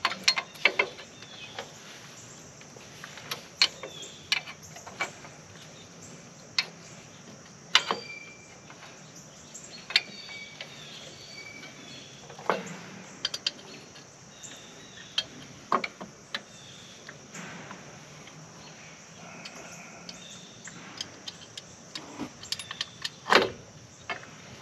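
Metal clicks and clinks of Jeep Wrangler TJ rear drum brake shoes, springs and hardware being handled and fitted onto the backing plate, irregular, with the loudest clank near the end.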